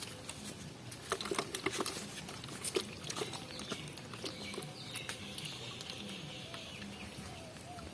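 Shallow water splashing and sloshing in short irregular bursts as hands work through it, thickest between about one and three seconds in.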